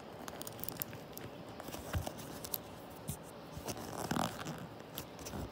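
Fingers pushing and seating a metal retaining clip on the edge of a door card, with faint scraping and scattered small clicks.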